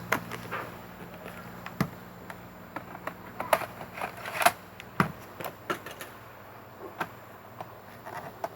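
Irregular plastic clicks and knocks of a laptop DVD optical drive being pushed back into its bay in a Lenovo IdeaPad 320 case, the loudest knock about four and a half seconds in.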